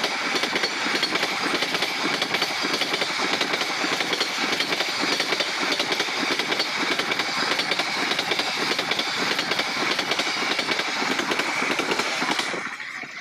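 A train's coaches rolling past at close range over a level crossing: a continuous clatter of steel wheels on the rails with rapid clicks, and a thin steady high tone running through it. The noise drops away near the end.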